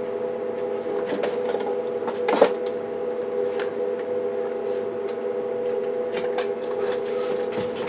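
A steady electrical hum runs throughout, with a few light clicks and one sharper knock about two and a half seconds in as equipment is handled and connected on the bench.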